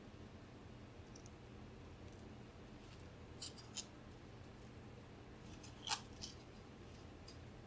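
Faint, scattered small clicks and ticks of glass seed beads on wire being handled and twisted by fingers, the most distinct around four and six seconds in, over a low steady hum.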